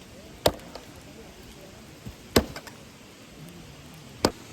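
Wood being chopped: three sharp chopping strikes about two seconds apart, with a few lighter knocks between, over the steady hiss of flowing water.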